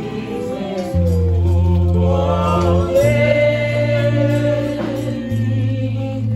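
Gospel singing over sustained low chords from an accompanying instrument. The chords change about a second in, again at three seconds and once more past five seconds.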